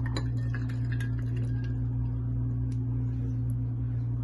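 Cold milk poured over ice cubes in a glass mug, with small clicks and ticks of the ice in the first second or so, then a few sparse ticks, over a steady low electrical hum.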